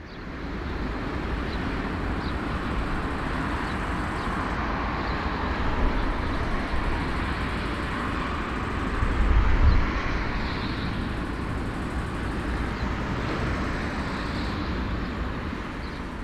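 Airbus A340-300's four jet engines running at low taxi power: a steady rushing rumble that swells for a moment about nine to ten seconds in.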